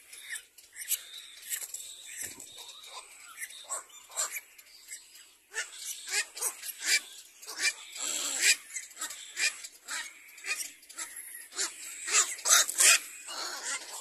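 Cormorant chicks in the nest giving many short, hoarse begging calls in quick, irregular succession. The calls grow denser and louder from about halfway in.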